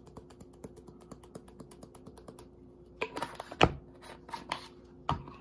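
Onion powder shaken from a plastic spice shaker, a rapid even rattle of about eight taps a second. It is followed by a few louder knocks and rustles of the bottle, with a sharp thump a little past the middle and another near the end.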